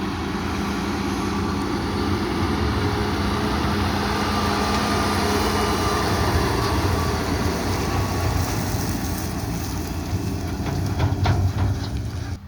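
Farm tractor hauling a grain trailer drives close past, its engine running steadily with the trailer rattling. The sound swells towards the middle, rattles near the end and cuts off suddenly.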